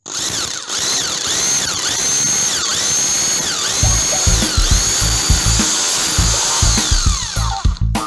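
Power drill running, its whine dipping and recovering about once a second as it takes the load. Background music with a regular beat comes in about four seconds in.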